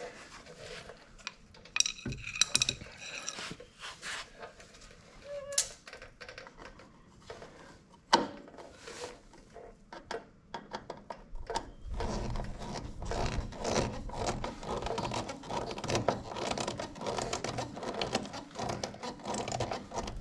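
Small clicks and taps of a plastic lens, screws and a rubber washer being handled. From about halfway, a long fast run of rapid clicking and rattling as a small stainless screw is driven in to mount the park light lens.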